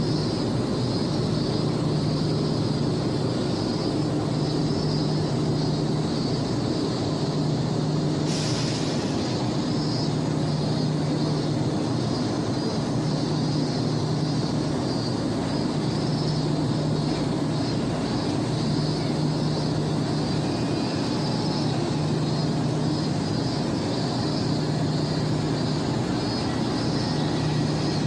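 Steady running noise of a vehicle, with a low hum that comes and goes every few seconds over a constant hiss.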